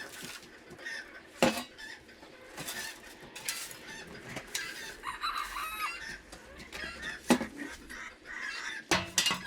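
Chickens clucking and calling, with a few sharp knocks or clinks, one about one and a half seconds in and a pair near the end.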